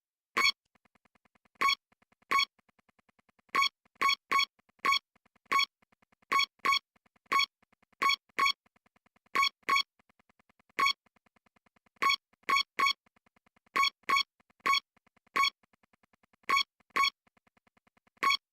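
Electronic synthesizer music: one high beep-like note repeated in a syncopated rhythm, about two to three notes a second, with a faint buzz between the notes.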